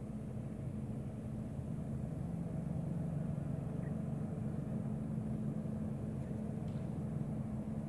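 A steady, low engine hum running without change.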